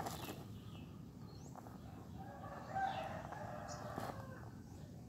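A rooster crowing faintly, one long call starting about two seconds in and lasting well over a second.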